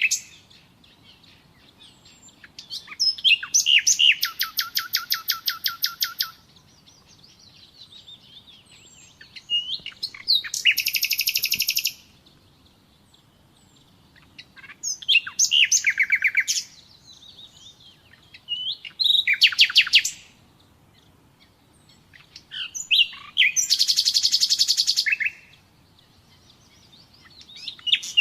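Common nightingale singing: about five phrases of fast repeated notes and trills, each a second or three long, with pauses of a few seconds between them.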